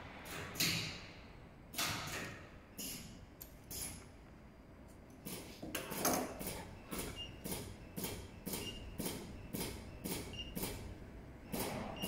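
Scissors snipping heavy polyester webbing and the webbing being handled on a sewing machine's steel clamp plate, then a run of evenly spaced sharp clicks, about three a second, with a few faint short beeps, as the machine's controls are worked.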